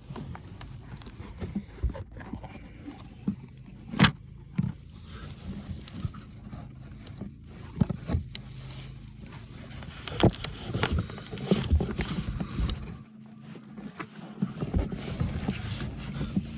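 Scattered clicks, knocks and scrapes of a cabin air filter and the plastic of its housing being handled and pushed into place, the sharpest knock about four seconds in, over a faint steady hum.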